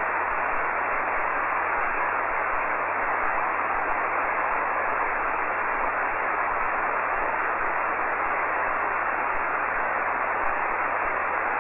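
HF amateur radio receiver on the 40-metre band giving a steady hiss of band noise while nobody transmits, the hiss cut off above the voice range, with a faint low hum beneath.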